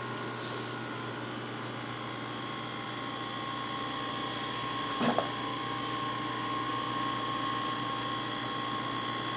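Sony AV-3400 half-inch open-reel video recorder running with its cover off: a steady mechanical whine with several held tones from its motors, rotating head drum and capstan. One short knock about five seconds in.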